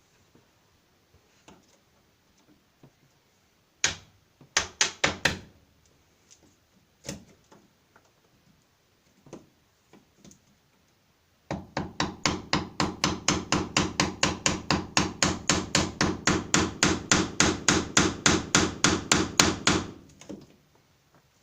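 Hammer blows driving a chisel into wood, cutting out the hole for a deadlock's keep. A few scattered strikes come first, then a fast steady run of about five strikes a second that stops about a second before the end.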